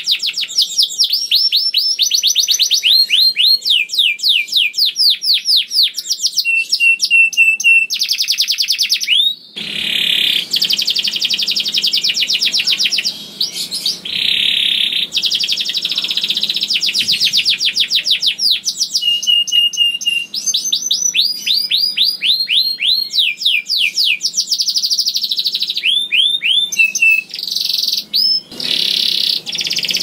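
Domestic canary singing a long unbroken song: fast rolls of rapidly repeated falling notes, a few short steady trills, and stretches of dense buzzy rolling.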